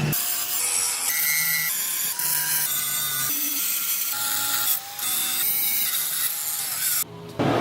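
A power tool abrading metal in a rasping grind, its whine stepping to a new pitch every half second or so and dropping out briefly near the end.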